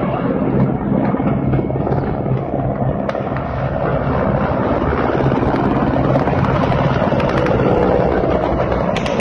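Several Mi-17 military helicopters flying low past, a steady, loud rotor beat and engine noise.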